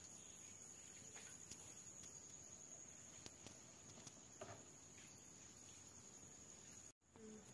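Faint, steady, high-pitched trill of insects, with a few faint ticks. The sound drops out for an instant near the end.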